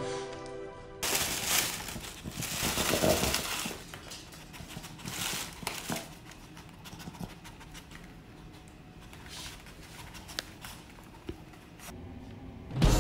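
Thin plastic shopping bag rustling and crinkling as a Yorkshire terrier roots in it and tugs at it, in irregular bursts. It is loudest in the first few seconds and fainter and patchier after that.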